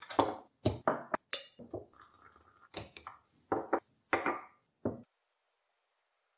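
A metal teaspoon, a porcelain cup and saucer and a glass French press set down on a wooden countertop, making a quick run of about a dozen clinks and knocks that stops about five seconds in.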